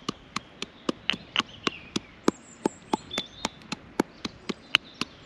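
A pestle pounding in a small mortar: sharp knocks in a steady rhythm of about three to four a second.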